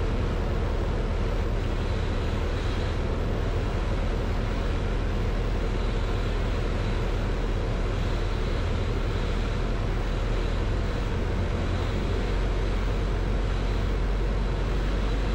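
Steady drone of a Zenith CH 750 Cruzer light aircraft's engine and propeller with airflow noise, heard inside the cockpit on final approach with flaps fully down.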